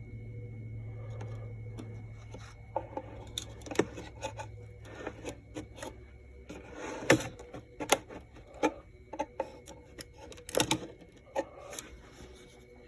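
Scattered clicks and knocks of hands handling the back of an old radio cabinet as its cover and screws are worked loose, with a low hum that fades after about two seconds.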